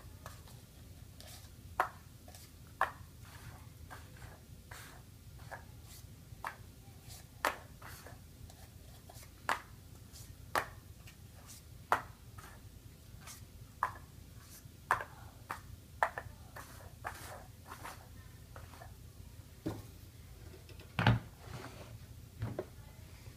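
Paper cups being set down one at a time on a hard surface: short, sharp taps at irregular intervals of about a second, with a heavier thump near the end.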